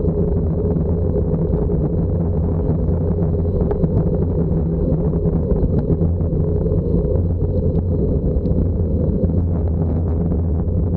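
An engine running at a steady speed: a loud, even, low drone that holds one pitch throughout.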